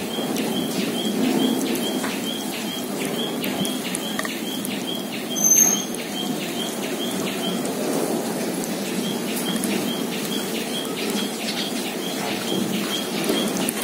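A short high chirp repeated evenly, about three times a second, stopping for a second or two past the halfway point and then resuming, over a steady low background noise. A louder burst of sound comes about five and a half seconds in.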